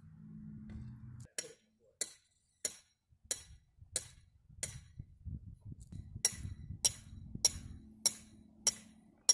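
Tent stake being hammered into the ground: sharp metallic clinks about every two-thirds of a second, a dozen or so strikes with a short pause midway.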